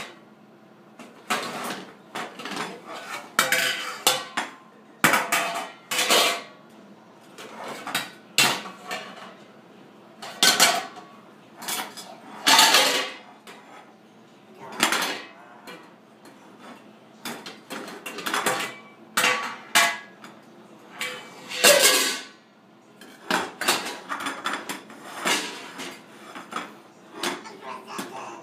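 Frying pans banged and knocked together on a tile floor by a toddler: irregular metal clangs and knocks, roughly one or two a second, each with a short ring.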